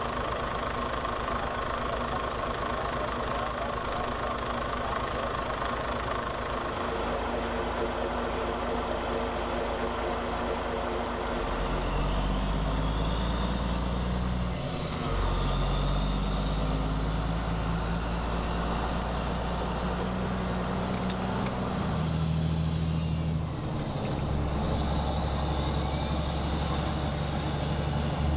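Heavy diesel truck tractor hauling a lowbed trailer loaded with a tank, its engine working under load as it pulls away and drives off. The engine note drops and picks up again twice, and a faint rising whine comes in near the end.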